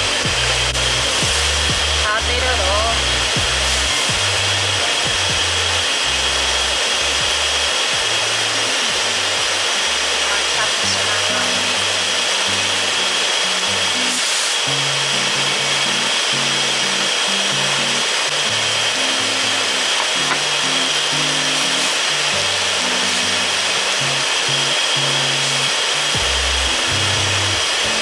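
Background music with a changing bass line over a steady hiss.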